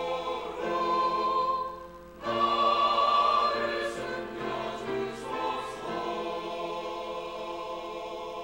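Choir singing a hymn's closing phrase, with a short break about two seconds in, then a final chord held from about six seconds on, slowly getting quieter.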